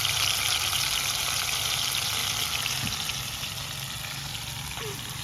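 Marinated chicken pieces deep-frying in hot oil in a kadai: a steady sizzle with fine crackling spatters, easing slightly after the first couple of seconds.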